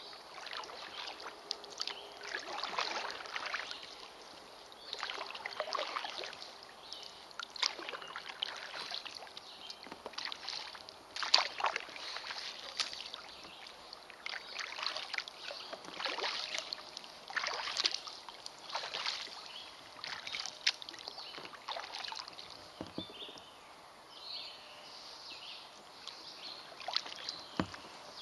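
Kayak paddle blades dipping and pulling through the water in a steady run of splashing swishes, about one every second and a half, growing fainter near the end.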